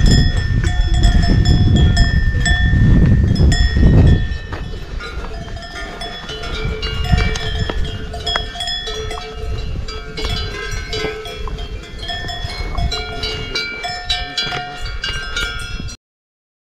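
Many cowbells on a grazing cattle herd clanking irregularly, the bells ringing at several different pitches. A loud low rumble sits under them for the first four seconds. All sound cuts off abruptly near the end.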